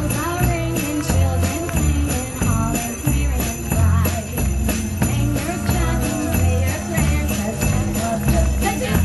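Live band playing an upbeat Christmas number: sleigh bells jingle over a steady bass and drum beat, with saxophone carrying a wavering melody line.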